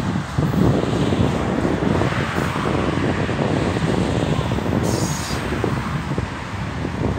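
Freight train of autorack cars rolling past at a steady pace: a continuous rumble with close-spaced clatter of steel wheels on the rails.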